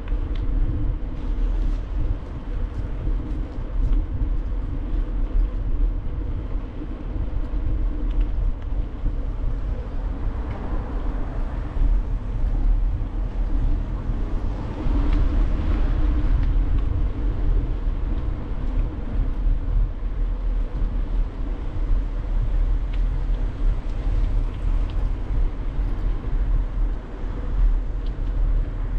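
Wind rumbling on the microphone of a bike-mounted action camera while cycling along a city street, with steady road noise. Traffic swells up about halfway through as a vehicle passes.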